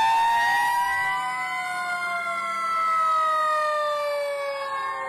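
Fire engine sirens wailing, several siren tones overlapping and sliding slowly down in pitch.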